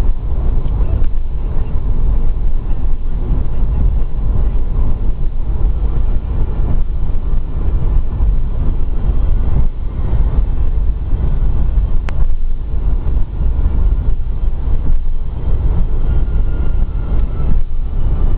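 Steady low rumble of a car driving at highway speed, heard from inside: road, tyre and engine noise.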